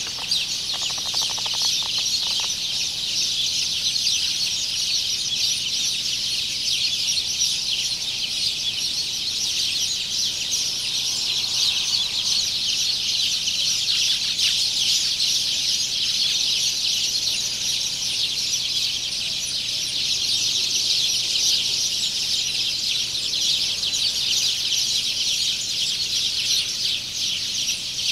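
A steady, dense chorus of many small birds chirping at a high pitch, without a break.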